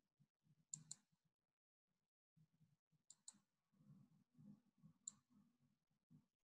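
Near silence broken by a few faint, sharp clicks: a quick double click just under a second in, another double click a little after three seconds, and single clicks about five seconds in and at the end.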